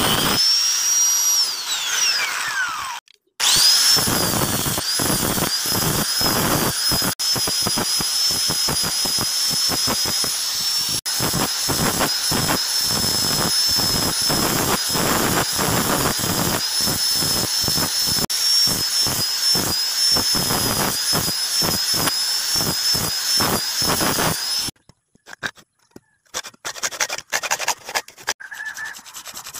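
Angle grinder grinding into a steel blade, its motor whining steadily over the rasp of the disc on metal. The motor winds down about two seconds in, starts again with a rising whine and runs steadily until it stops near the end. Then come short rasping strokes of a hacksaw on the metal.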